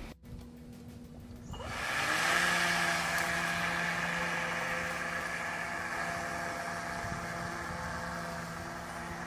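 Hart brushless cordless electric lawn mower's motor spinning up with a rising whine about a second and a half in, then running steadily as the mower cuts grass, easing slightly as it moves away.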